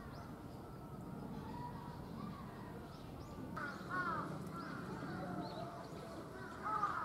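Crows cawing in short runs of calls, the loudest about halfway through and again near the end.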